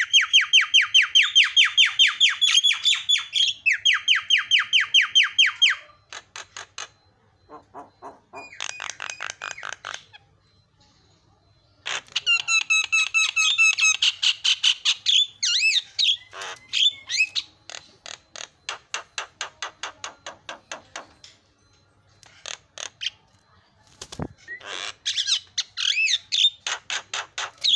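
Javan myna calling in runs of rapid, harsh, chattering notes, each run lasting a few seconds, with short pauses between them and the phrases changing from run to run.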